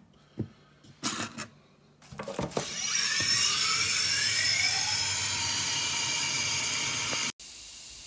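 A few light clicks of washable vacuum filters being handled in a stainless steel sink. About two seconds in, tap water starts running hard onto the foam filters, a steady rushing splash with faint rising tones in it, as the filters are washed out. The rush cuts off suddenly near the end.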